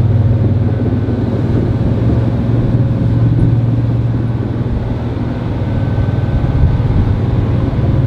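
Ship's engine running steadily, a loud low drone with a fine even pulse, heard below deck in the cabins.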